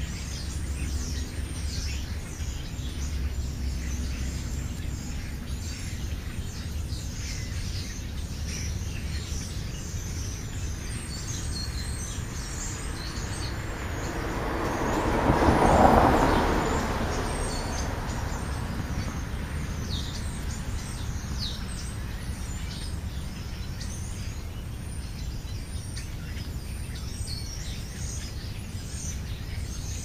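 Small birds chirping intermittently over steady outdoor background noise, with a vehicle passing on the nearby road about halfway through, rising to a peak and fading away.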